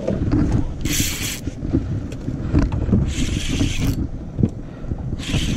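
Spinning fishing reel and rod being handled and cranked while a line snagged on the anchor is worked free. A low rumble runs throughout, broken by three short bursts of hiss and a couple of sharp clicks.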